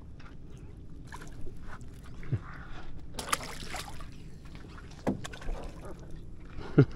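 A puffer fish thrown back over the side of the boat hits the water with a brief splash about three seconds in. A few light knocks and the lap of water around the boat fill the rest.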